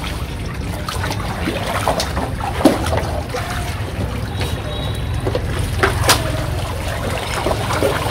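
Shallow pool water sloshing and trickling as Rottweiler puppies wade through it, with small splashes throughout and two sharper knocks, about two and a half and six seconds in, over a steady low hum.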